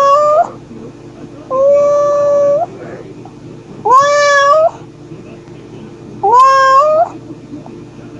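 A mother cat calling for her kittens: a series of loud meows about two and a half seconds apart. Each meow rises quickly, then holds a steady pitch for about half a second to a second.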